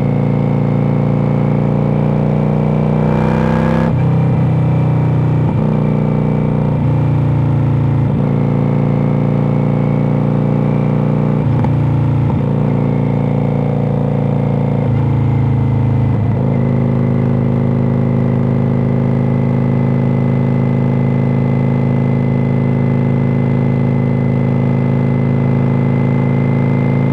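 Cruiser motorcycle with loud pipes riding, its engine note holding steady and then changing pitch several times in the first half, with gear changes and throttle, before settling into one steady note.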